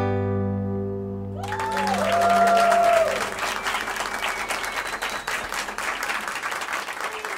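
Final acoustic guitar chord ringing out and fading, then audience applause breaking out about a second and a half in, with someone in the crowd calling out over it.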